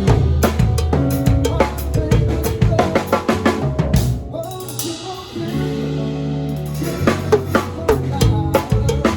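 Music with a drum kit and deep sustained bass notes. About four seconds in the drums drop out under a swell of hissing noise, and drums and bass come back in about seven seconds in.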